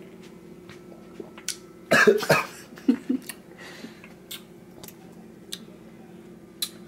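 A man coughs hard about two seconds in, then makes two short throaty noises and a few faint clicks. It is his reaction to downing a shot of apple cider vinegar, whose sourness catches in the throat.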